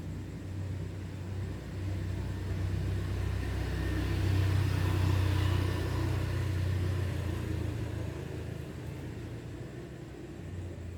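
A motor vehicle passing by: its engine and tyre noise grows louder to a peak about halfway through, then fades away.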